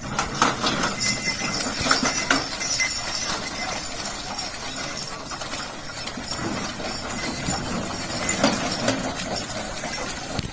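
A bullock cart on the move: the bullocks' hooves clopping, mixed with the cart's irregular rattling and knocking.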